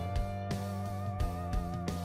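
Instrumental background music: a held melody note with a slight waver over a steady beat.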